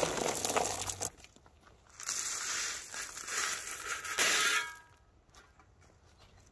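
A steel shovel scraping and clanging as it scoops crushed-stone ballast from a metal trailer bed, then the stones pouring off the shovel onto the track bed in a rush lasting a couple of seconds and stopping near the end.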